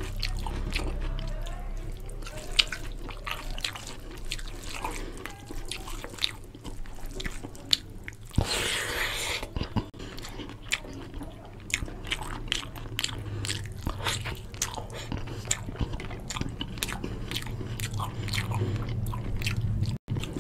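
Close-up chewing and wet mouth clicks of someone eating rice and chicken curry by hand, with fingers squishing the rice and gravy on the plate. A brief rushing hiss about eight seconds in, over a steady low hum.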